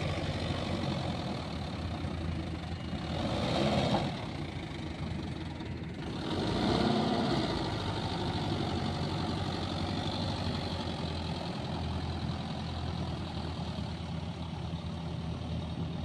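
Diesel engine of a Mahindra Yuvo 575 DI 4WD tractor running steadily under load as it drags a loaded trailer through deep mud, swelling louder twice, a few seconds in and again near the middle.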